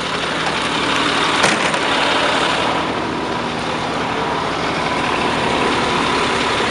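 Caterpillar diesel engine of a 2003 Sterling Acterra 8500 truck idling steadily, with a faint steady whine over it and one sharp tap about a second and a half in.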